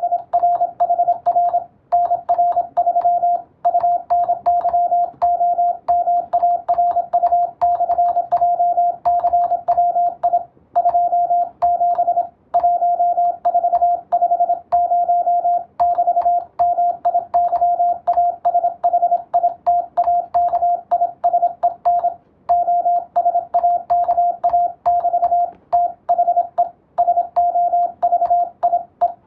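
Morse code (CW) sent as a single steady tone keyed on and off in dots and dashes, with short gaps between characters and a few longer pauses. It is radiotelegraph code practice for sending and receiving.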